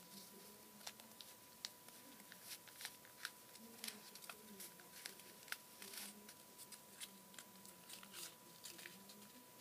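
Faint crackling and clicking of a cardboard toilet-paper tube being rolled tightly around a pencil by hand, in scattered, irregular ticks.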